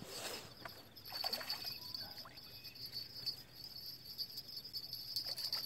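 Light splashing and sloshing of water in the shallows as a hooked bream is played toward a landing net, over a steady high chirring of crickets.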